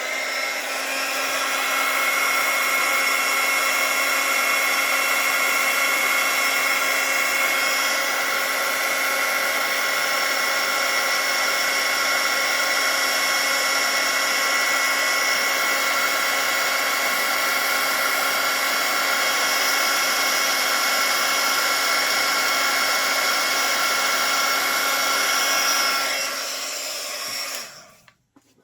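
Handheld embossing heat tool blowing steadily with a whining fan motor, used to melt embossing powder until it turns shiny. It is switched off near the end and winds down.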